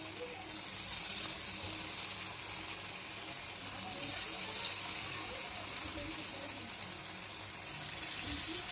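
Hot oil in a kadhai sizzling steadily as balls of cabbage batter for veg Manchurian are dropped in by hand and deep-fry. The sizzle swells briefly about a second in, again around four seconds and near the end, as each ball goes in; a single short click sounds a little before five seconds.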